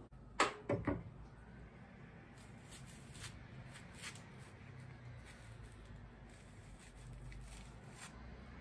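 A few sharp knocks against a wooden cutting board about half a second in, then faint scraping and light ticks as a metal spoon scoops the soft seeds and pith out of a halved bitter melon.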